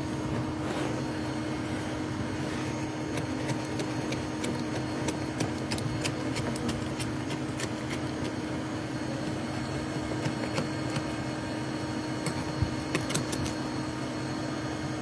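Steady hum with a constant low tone, over scattered light clicks and scrapes of hand tools working honeycomb out of a wall cavity. The clicks cluster about five to seven seconds in and again near the end.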